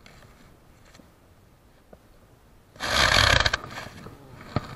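Handling noise on the camera: a loud rubbing scrape lasting under a second about three seconds in, trailing into softer rustling, with a sharp click near the end.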